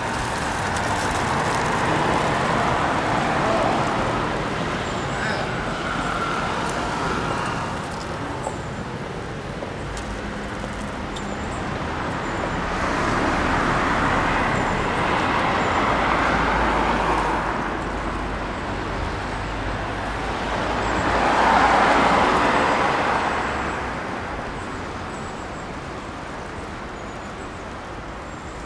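Street traffic: cars driving past, the noise swelling and fading as each goes by over a steady background of traffic. The loudest pass comes about three-quarters of the way in.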